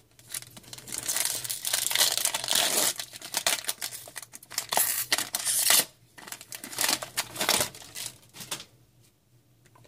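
Foil wrapper of an Upper Deck Series One hockey card pack being torn open and crinkled. The crackling rustles run through most of the first six seconds, with a few more about seven to eight seconds in.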